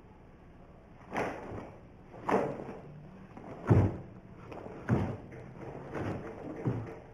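A karateka moving through a kata barefoot on a wooden floor: six sharp thuds and swishes from steps, stamps and the gi with each technique, roughly a second apart. The loudest and deepest thud comes about halfway through.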